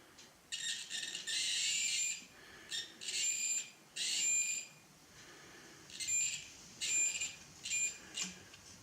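Multimeter continuity tester beeping as its probes touch the DB15 connector's pins: a series of beeps at one steady pitch, some stuttering and broken where the probe contact is uneven, some held for about half a second to a second. The beeps show the pins are connected together.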